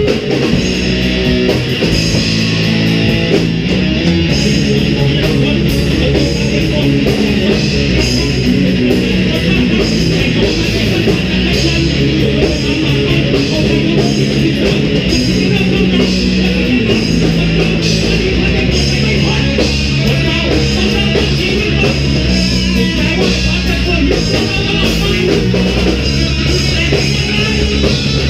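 Live rock band playing loud and without a break: electric guitar, bass and drums, with a vocalist singing into a microphone.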